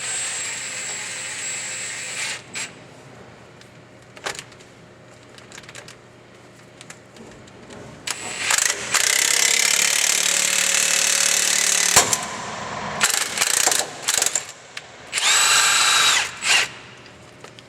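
An impact gun running in three bursts, driving a ball joint press to force the old lower ball joint out of a 2012 Ram 2500's steering knuckle. The longest and loudest burst comes in the middle, its pitch rising slowly; a shorter burst follows near the end, with clanks between.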